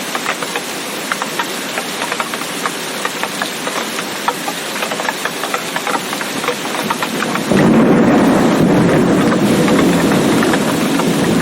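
Steady rain with many close, sharp drops. About seven seconds in, a loud, low thunder rumble starts suddenly, holds, and cuts off abruptly near the end.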